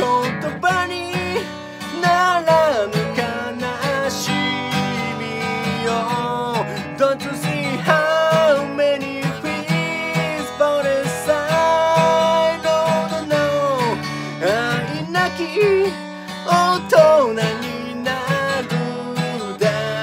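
A man singing a melody while strumming an acoustic guitar himself.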